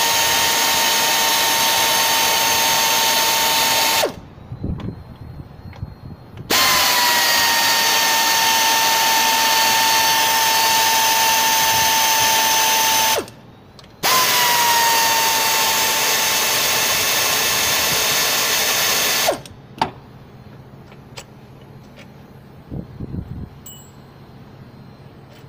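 Handheld power tool spinning out the AC compressor's mounting bolts in three long runs, each a steady whine that settles a little lower in pitch just after it starts. After the third run stops, a few light clicks of handling.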